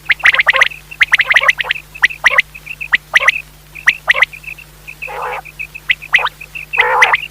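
Common quail calling: quick clusters of sharp, clipped high notes, repeated over and over, with two rougher, buzzier calls about five and seven seconds in. A faint steady hum sits underneath.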